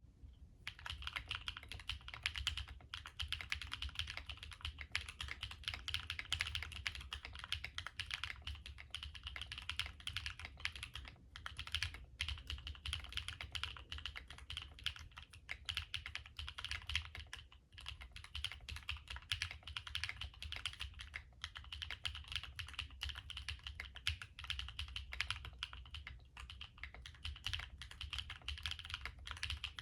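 Continuous fast typing on an Alice-layout mechanical keyboard with stock HMX Purple Dawn linear switches, a polypropylene plate, and plate and case foam, with PBT and DCX keycaps. The keystrokes run rapidly, many per second, with only brief pauses.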